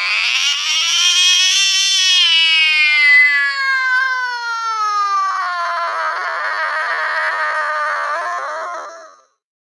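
Angry cat's yowl, slowed down: one long wavering call that slides slowly lower in pitch, turns rough and raspy about halfway through, and stops about nine seconds in.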